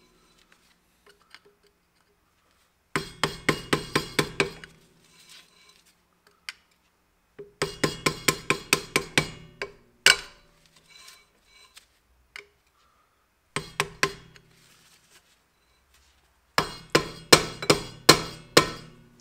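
A small hammer tapping a screwdriver wedged under the metal grease cap on a drum-brake wheel hub, driving the cap off. There are four runs of quick metallic taps, about five a second and each with a short ring, with a few single taps between them.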